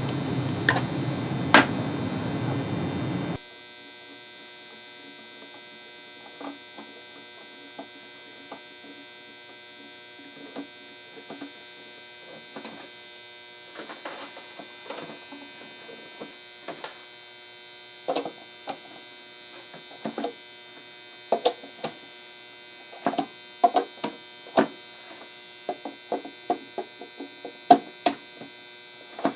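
A steady rushing noise with two sharp clicks for the first few seconds, cutting off abruptly to a quieter steady electrical hum, over which come scattered light clicks and knocks, more frequent toward the end.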